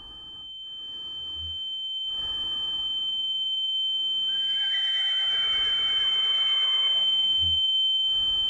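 A steady high-pitched ringing tone swells louder throughout. From about four seconds in, a horse whinnies in a long, wavering cry as it rears.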